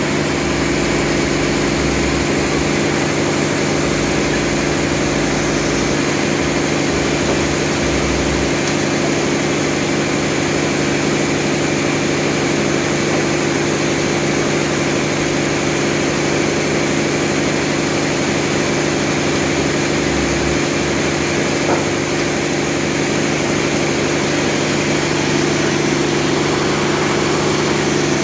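A motor running steadily at an even speed: a constant hum that neither rises nor falls.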